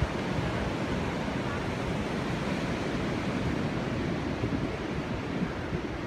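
Pacific Ocean surf breaking and washing on a sandy beach as a steady rush of noise, with wind buffeting the microphone.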